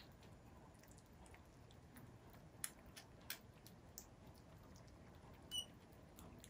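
Kittens eating wet cat food from a plate, faint: scattered soft chewing and lapping clicks. A short high-pitched squeak comes about five and a half seconds in.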